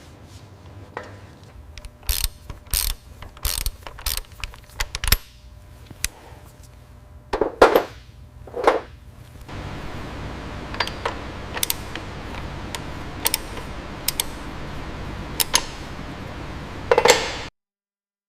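Metal hand-tool work on a motorcycle: a run of sharp metallic clicks and clanks, two duller clunks around the middle, then a steady background hiss with scattered clicks. The sound cuts off abruptly near the end.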